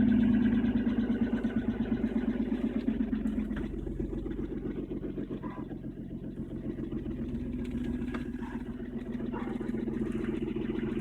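BMW 325i's straight-six engine idling after a cold start below freezing, loudest at first and easing down over the first few seconds. Through it runs a fast, even tapping like a little hammer, from the VANOS variable valve timing unit.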